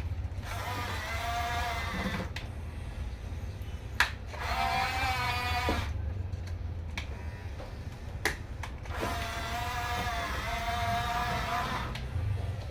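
Small electric drive motors of a Huina 1569 radio-controlled bulldozer whining in three runs of one to three seconds each, with a few sharp clicks between the runs.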